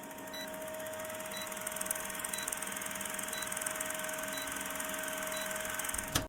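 A steady machine hum with a constant tone, and a short high beep about once a second; it starts and cuts off abruptly.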